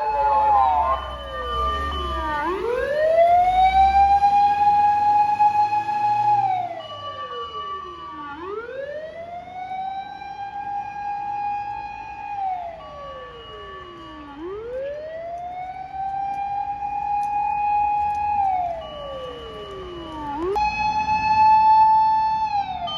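Japanese fire engine siren wailing in a slow cycle, climbing quickly to a high held note, holding it for a few seconds, then sliding down, about every six seconds. A heavy engine rumbles underneath early on, and near the end the siren jumps straight back to its high note.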